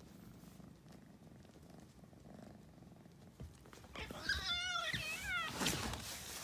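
A British Shorthair kitten gives one trilling meow about four seconds in, its pitch wavering quickly up and down for about a second and a half, followed at once by a short breathy noise.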